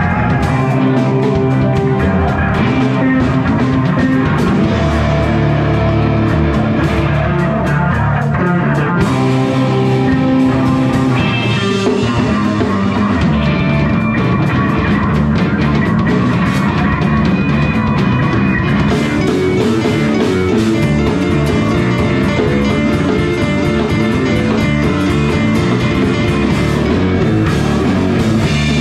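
Live rock band playing an instrumental passage, with electric guitars over a drum kit, continuous and loud.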